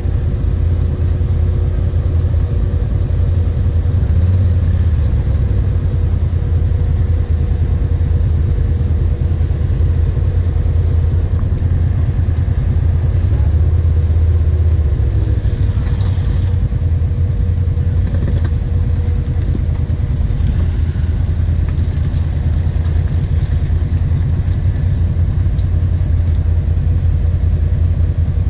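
Kawasaki KVF 750 Brute Force quad's V-twin engine idling steadily, close to the microphone.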